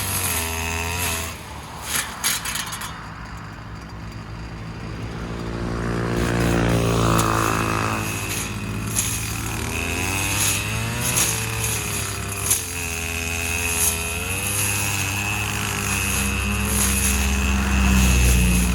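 Stihl FS250 brush cutter's two-stroke engine running, its pitch rising and falling again and again as it revs up and down while cutting grass.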